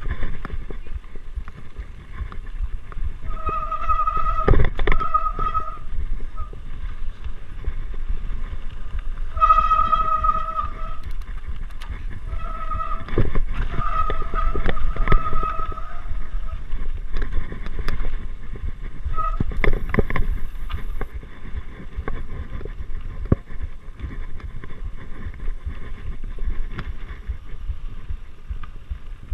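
Mountain bike ridden fast down a rough dirt trail, heard from a camera on the rider: a steady rumble of wind and tyres with knocks and rattles over bumps. A high, steady tone rises out of it and fades several times.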